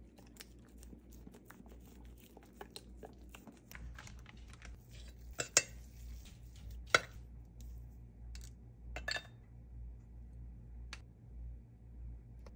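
A dog licking food off a spoon with quick small clicks, then a fork and a measuring scoop clinking and scraping against a ceramic slow feeder bowl as raw meat is spread and powder is added. Two sharp clinks about five and a half and seven seconds in are the loudest sounds.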